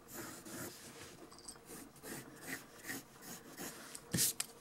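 Graphite pencil scratching on drawing paper in short, irregular strokes, with a louder swish about four seconds in as a hand rubs across the sheet.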